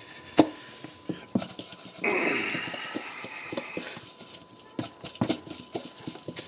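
A clear plastic lid snapping onto a plastic mixing bowl, then chicken pieces thudding and rattling inside the covered bowl as it is shaken for about two seconds to coat them in seasoned flour, followed by a few more knocks as it is handled.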